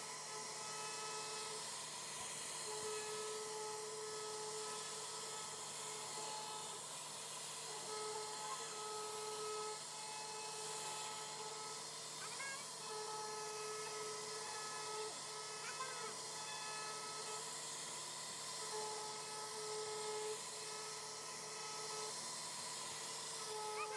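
CNC router carving wood: a steady hiss of the spindle and cutting, with a whining tone that comes and goes every few seconds as the machine moves from one pass to the next.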